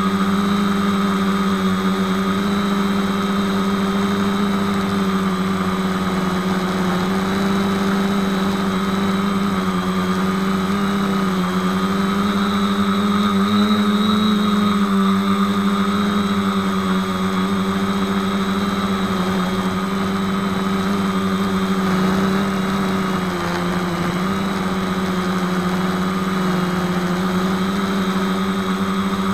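Electric motors and propellers of a 450-size quadcopter, heard up close from the camera mounted on it: a steady buzzing hum whose pitch rises slightly about halfway through and dips a little later as the throttle changes.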